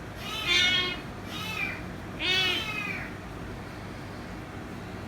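Kitten meowing three times in quick succession, each call arching up and down in pitch, then falling quiet. Insistent attention-seeking cries.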